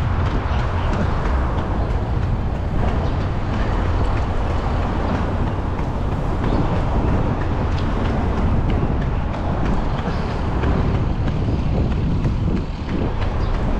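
Steady low rumble of wind buffeting the microphone while running alongside a runner, with faint ticks of footfalls through it.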